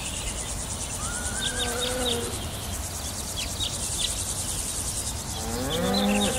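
Summer meadow ambience: crickets chirring steadily, with scattered short bird chirps. A drawn-out pitched call rises and falls about a second in, and again, louder, near the end.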